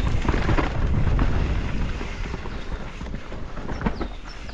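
Enduro mountain bike racing down a rooty dirt trail, heard from a camera on the rider: wind rushing over the microphone, tyres rumbling on the dirt and the bike rattling and knocking over roots.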